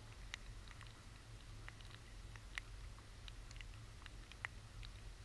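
Sparse, irregular raindrops ticking on the camera, over a faint, steady low rumble.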